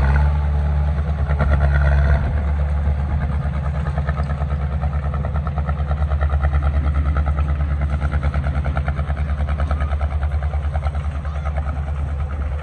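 Diesel engine of heavy earthmoving machinery running. It is a steady low drone at first, and about two seconds in it turns into an even, rapid throbbing that carries on.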